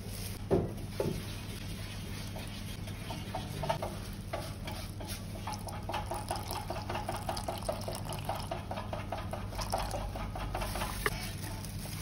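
Liquid poured from a plastic bottle onto waffle premix powder in a stainless steel pan, glugging in fast, regular pulses from about three seconds in until near the end.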